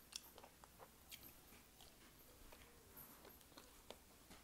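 Faint chewing: a person eating a potsticker dumpling, with soft, irregular mouth clicks and smacks.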